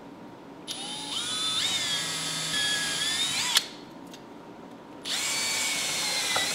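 Cordless drill boring holes through a small monitor mounting bar: two runs of motor whine, the first starting about a second in and stepping up in speed before stopping, the second starting about five seconds in.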